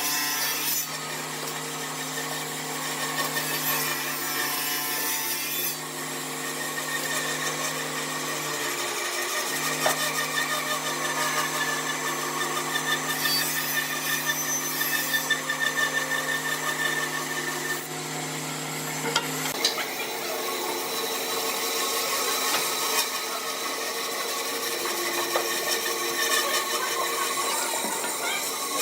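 Wood lathe running with a steady motor hum while a tool cuts and scrapes the spinning wood. The hum breaks off briefly about a third of the way in and drops out about two-thirds of the way through, while the scraping goes on.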